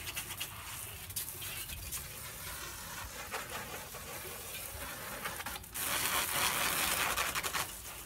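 Water spraying from a garden hose nozzle, a steady hiss that grows louder for a couple of seconds near the end.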